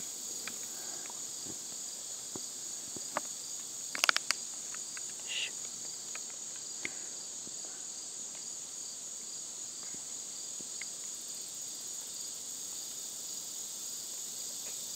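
Steady high-pitched insect chorus of the woodland, trilling without a break, with a quick cluster of three sharp clicks about four seconds in.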